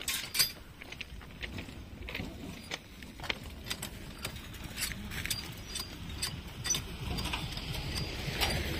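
Irregular metallic clinks and taps as steel tools and clamp parts are handled against the rail ends at a rail joint being set up for welding. A low rumble builds over the last couple of seconds.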